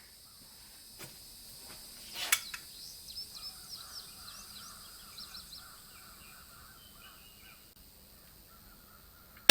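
Quiet stretch with birds chirping faintly and a single sharp click about two seconds in, ended by one loud shot from a Hatfield 20 gauge break-action single-shot shotgun right at the very end.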